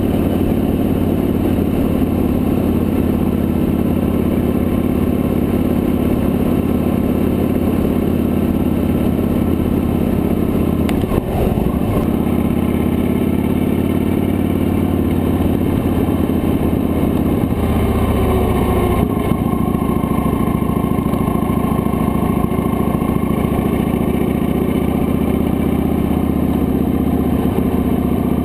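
Victory High Ball's V-twin engine running steadily while the motorcycle cruises along a road. The engine note changes briefly about a third of the way in and shifts again about two thirds of the way through.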